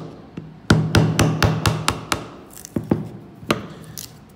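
Rubber mallet striking the metal-capped end of a wood chisel as it cuts a notch into a board. There is a quick run of about eight knocks, about five a second, then a few slower, spaced blows near the end.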